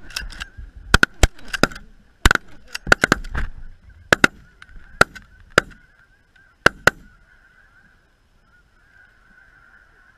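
Rapid shotgun volley: about fourteen sharp blasts over roughly seven seconds, ringing out over the steady honking of a large flock of geese. After about seven seconds the shooting stops and the flock's honking goes on, quieter.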